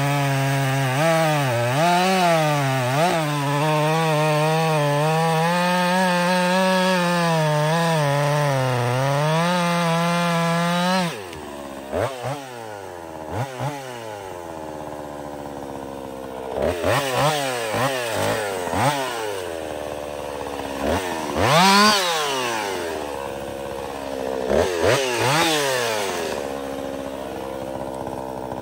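Woods-ported Jonsered 2156 two-stroke chainsaw cutting under load, its high engine note wavering slightly as it bites. About eleven seconds in it drops back to idle, then it is revved in short blips several times.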